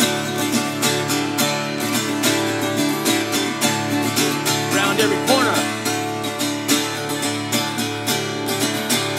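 Acoustic guitar being strummed in a steady rhythm, about two strokes a second, as part of a song.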